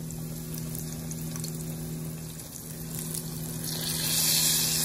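Battered sea bass fillets frying in a pan of hot oil: a steady sizzle over a low hum. Near the end another battered piece goes into the oil and the sizzle swells louder for a moment.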